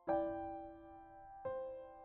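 Background music: soft piano chords, one struck at the start and another about a second and a half in, each ringing and slowly fading.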